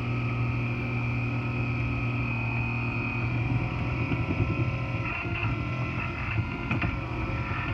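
Stair Friend stairlift drive motor and gearbox running along the rack: a steady low hum with a high whine above it. The hum eases about three seconds in, and a few light clicks come later.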